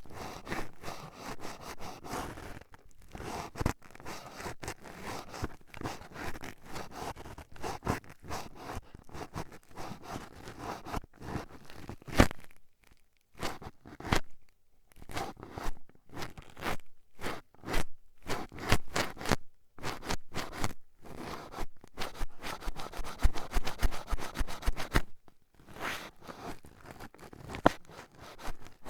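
Toothpicks jabbing and scraping at the ear in close-up ear ASMR: a dense run of sharp scratchy clicks and rasps, with brief pauses about halfway through and again near the end.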